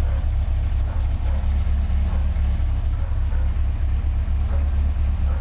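Car engine idling with a light, drumstick-like tapping timed to the exhaust stroke. It is a leftover strange noise that has improved but not gone.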